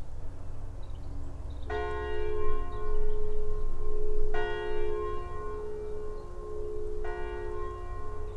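A church bell tolling: three strokes about two and a half seconds apart, each ringing on into the next.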